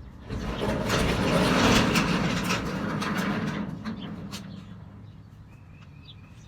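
A passing vehicle: a noisy rumble that swells about half a second in, peaks over the next second or so, and fades away over the following few seconds.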